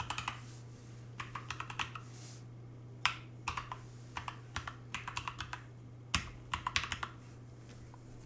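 Typing on a computer keyboard: quick runs of keystrokes with short pauses between them, over a low steady hum.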